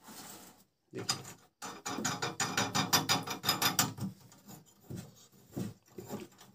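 Screwdriver tightening a screw on a gas stove's burner mounting: a fast, even run of clicks from about a second in, lasting some three seconds, then a few scattered clicks.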